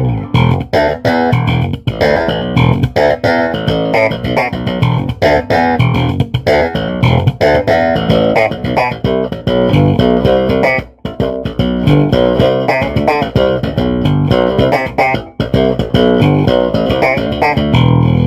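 Custom electric bass played slap-style on its humbucker pickup alone, heard through a bass amplifier cabinet: a busy run of sharp slapped and popped notes, with a short break about eleven seconds in and a note left ringing at the end. The humbucker is meant to give a Music Man-like tone.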